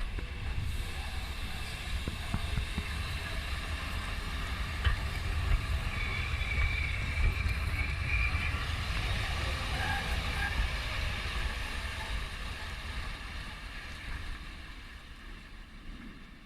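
A train running past on the rails: a steady rumble of wheels on track, with a high squeal in the middle. The sound fades away near the end.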